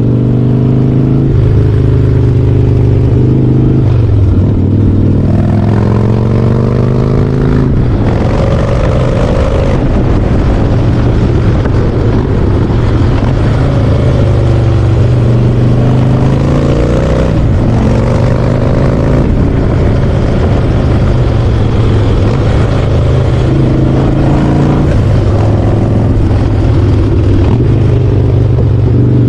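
Harley-Davidson Softail Slim's V-twin engine running while riding, its pitch climbing under acceleration and dropping back at gear changes several times.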